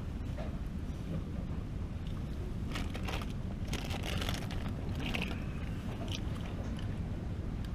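Steady low rumble of wind and surf, with close crackling and rustling handling noises from about three to five and a half seconds in, as fishing line is pulled from a leader spool and worked by hand.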